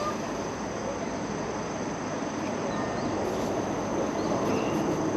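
Steady rushing airflow from an electric circulator fan running next to the microphone, with no change in speed.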